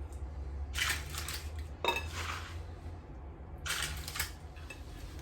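Spoon scooping chocolate crackle mixture (rice bubbles coated in melted copha and cocoa) against the bowl: three short crackly scrapes, one starting with a clink.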